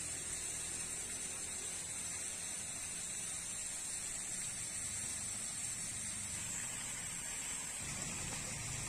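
Steady, even high-pitched hiss of insects in riverside jungle vegetation, with a low hum beneath.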